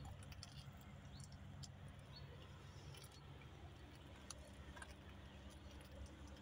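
Near silence: faint outdoor ambience with a low steady hum and a few scattered faint ticks.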